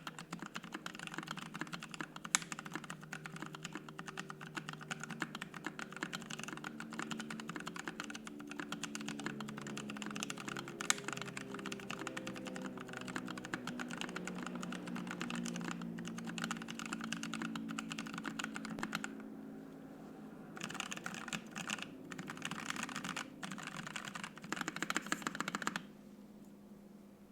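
Fast, continuous typing on a Savage65 65% mechanical keyboard fitted with lubed Penguin tactile switches, an FR-4 plate and PBT keycaps. The typing pauses about two-thirds of the way through, comes back in short bursts, and stops shortly before the end.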